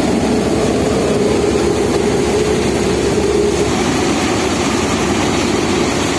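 Tractor-driven Bhai Bhai mustard threshing machine running at a steady pace as dried mustard plants are fed into it: a loud, even machine noise from the engine and the threshing drum.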